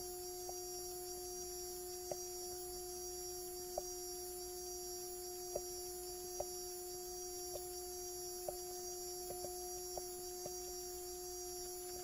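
Bulova Accutron Spaceview tuning-fork watch humming: its caliber 214 tuning fork vibrates 360 times a second, giving one steady, pure hum. A few faint, irregular clicks sound over it.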